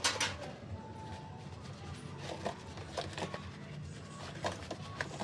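Metal tongs clicking and tapping on a perforated stainless-steel draining tray and a plastic tub: a handful of sharp clicks, the loudest right at the start. They sit over a steady background hum.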